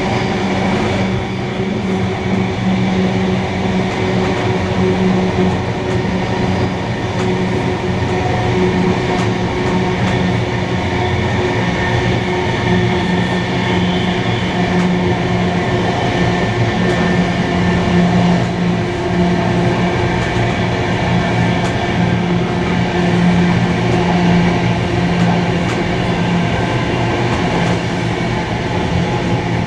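Steam-hauled heritage passenger train running along the line, a continuous even rumble with a steady hum.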